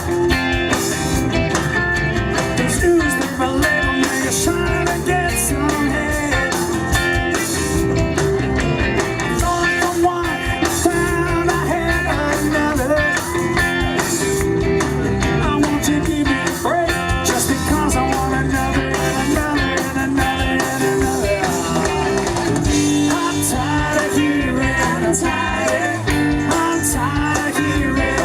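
Rock band playing a stretch of the song without lead vocals, with guitar in the mix.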